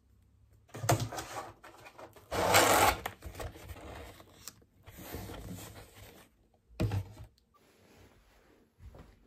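A cardboard mailer box being handled and pressed closed: rubbing and scraping of cardboard in bursts. The loudest is a rough rasp about two and a half seconds in, and there is a short knock near seven seconds.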